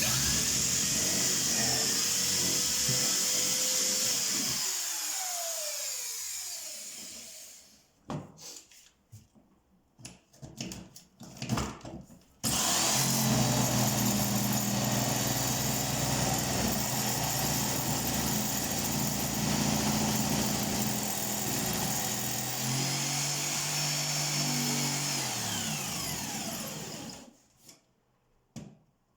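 Handheld electric power tool running in two long stretches, each winding down with falling pitch as it stops, with a few short knocks in between.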